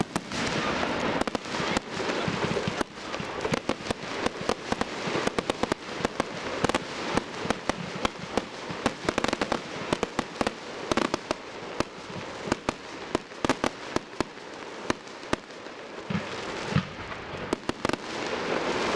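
Aerial fireworks display: shells bursting with rapid crackling and sharp bangs, many reports a second, thinning out to a few scattered bangs in the last few seconds.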